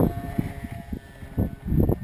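Wind buffeting the microphone in irregular gusts, loudest at the start and again near the end, over the faint steady whine of a small RC plane's brushless electric motor in flight.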